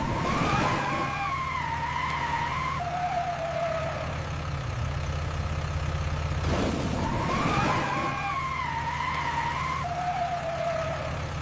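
Cartoon sound effect of a school bus's brakes and tyres screeching in an emergency stop, heard twice over a steady low engine rumble. Each screech starts suddenly, wavers in pitch for a few seconds, then sinks to a lower falling tone.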